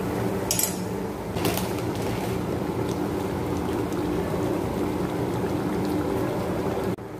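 Chicken gravy bubbling in a pan, with a spatula scraping through it twice about half a second and a second and a half in, over a steady hum.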